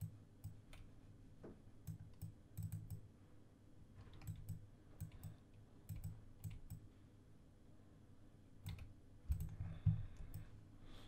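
Computer mouse clicking in irregular, scattered clicks, some in quick press-and-release pairs, as brush strokes are painted onto a layer mask in Photoshop. A few soft low bumps come just before the end.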